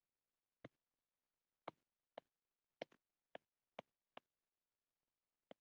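A series of short, sharp clicks at uneven intervals, about nine in all, with a quick pair near the middle, against dead silence.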